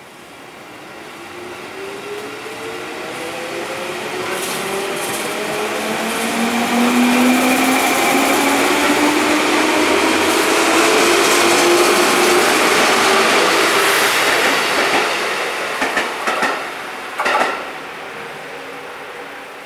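JR 205 series commuter train pulling out of the station, its traction motors whining and rising steadily in pitch as it accelerates. The sound builds to its loudest in the middle, there are a few sharp clacks from the wheels near the end as the last cars pass, and then it fades away.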